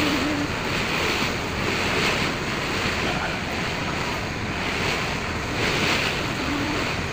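Wind buffeting the microphone and water rushing along the hull of a moving ferry boat, a steady rushing noise with slow swells in loudness.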